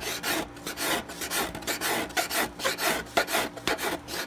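Hand scraper shaving a wooden guitar rosette down flush with the top, in quick, repeated scraping strokes, about three a second, cutting across at a slant.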